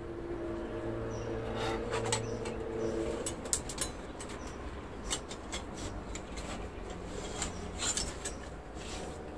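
Scattered clicks and scrapes of wire and hand tools being handled while a guy wire is anchored to pull a bonsai olive branch. A steady tone runs under the first three seconds.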